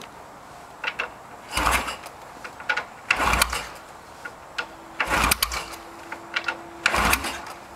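Yamaha XS650 parallel-twin engine being kick-started four times, about two seconds apart: each kick is a short loud burst, with the kickstart ratchet clicking in between, and the engine does not catch. The owner puts the failure down to the ignition timing being way out.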